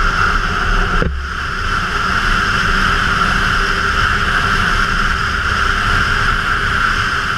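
Motorcycle riding at speed, heard from a camera mounted on the bike: a steady rush of wind and road noise over the engine's low rumble, with a brief break about a second in.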